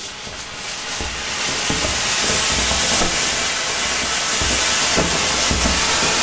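Ground fountain firework spraying sparks with a steady, loud hissing rush that builds over the first two seconds and then holds.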